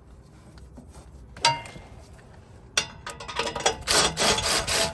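A single metal clank about a second and a half in, then a few seconds of quick, irregular clattering and rattling as tools and exhaust parts are handled under the car.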